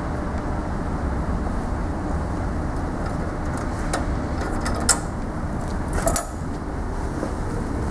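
Kalamazoo 4-inch belt sander running with a steady motor hum, with two sharp clicks about five and six seconds in.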